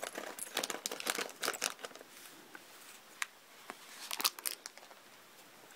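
A clear plastic bag of LEGO pieces crinkling as it is handled, with light clicks of small plastic bricks being set down. The crinkling and clicking are busiest in the first two seconds, then thin to a few scattered clicks.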